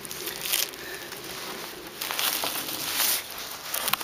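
Beehive being opened by hand: the sheet-metal lid lifted off and plastic sheeting crinkling, with irregular scrapes, rustles and a few light knocks.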